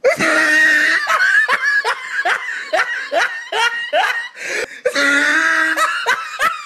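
A person laughing hard in a rapid string of short "ha"s that fall in pitch, about two a second, then a longer drawn-out laugh near the end.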